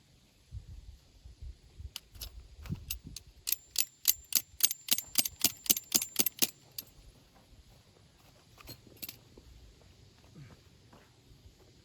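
A quick run of light metallic clinks, about three a second for some five seconds, with a faint ringing note, followed by a couple more clinks a few seconds later.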